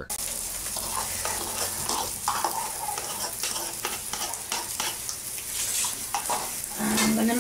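Fried rice sizzling in a frying pan while it is stirred, with a steady sizzle and many short scrapes and taps of the utensil against the pan.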